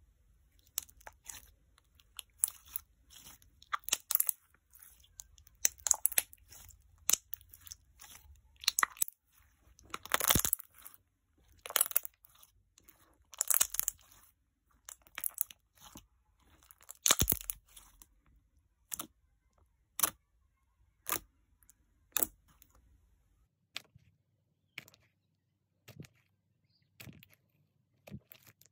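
Clear pink jelly slime squeezed between the fingers, folded and stretched, making irregular bursts of crisp clicks and crackles. The bursts are densest in the middle and thin out to scattered single clicks near the end.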